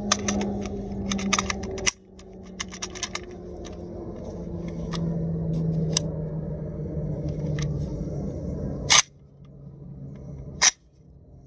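Metallic clicks and clacks of an AK-pattern rifle being handled while its faulty magazine is worked on. A dense run of clicks comes in the first few seconds, then two sharp, loud bangs from the rifle about two seconds apart near the end. Under it runs a steady low engine drone that slowly falls in pitch.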